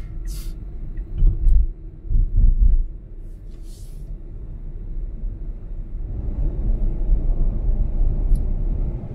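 Road and tyre rumble heard inside the cabin of a 2021 Tesla Model Y driving on the highway. A few low thumps come in the first three seconds, and the road noise grows broader and louder about six seconds in.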